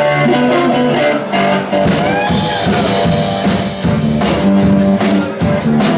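Live rock band playing a song's instrumental intro, with sustained chords from the start. A cymbal crash comes about two seconds in, and then the drum kit comes in with a steady beat.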